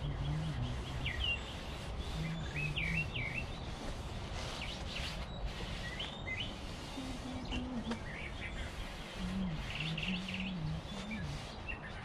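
Small birds chirping on and off over steady outdoor background noise.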